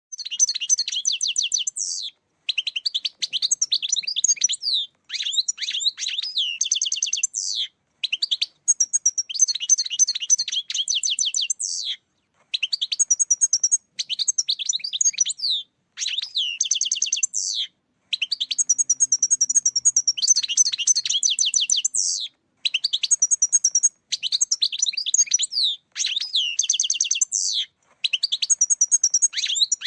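European goldfinch song: rapid, liquid twittering phrases mixed with buzzy trills, in bursts of one to three seconds separated by brief pauses. It starts suddenly after silence.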